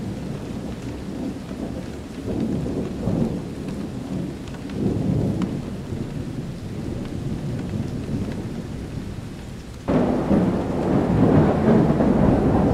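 Thunderstorm: steady rain with low rolling thunder that swells now and then, and a sudden louder thunderclap about ten seconds in that keeps rumbling.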